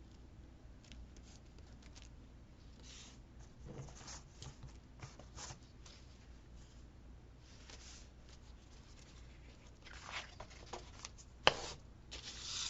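Faint paper rustling and light handling sounds as cut paper pieces are moved about on a planner page, with scattered soft clicks and one sharp tap about 11.5 seconds in.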